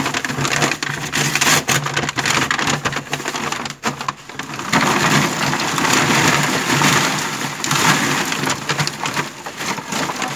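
Lumps of quebracho charcoal pouring from a paper bag onto a wire fire basket: a dense, continuous clattering rattle, heaviest from about five seconds in.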